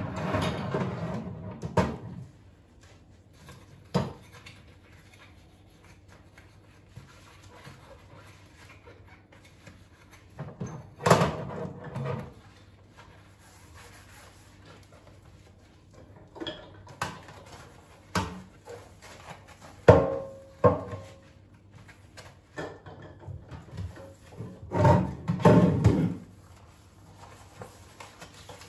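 Kitchen handling sounds: scattered knocks and clunks of items being picked up, moved and set down, in small clusters with quiet gaps between.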